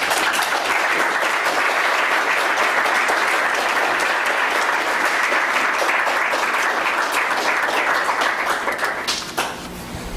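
Audience applauding: dense, even clapping that thins out to a few scattered claps about nine seconds in.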